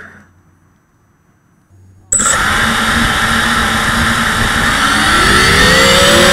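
Near quiet for about two seconds, then a racing quadcopter's DYS 2205 2300kv brushless motors start abruptly and run loud and steady with a harsh, noisy edge while the quad sits in the grass. One tone rises in pitch near the end as a motor speeds up.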